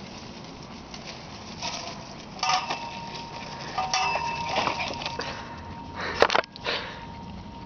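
Metal rattling and clanking as a chain-link gate and a tarp's metal frame are moved, with a ringing metallic tone held for about three seconds in the middle and two sharp clanks near the end.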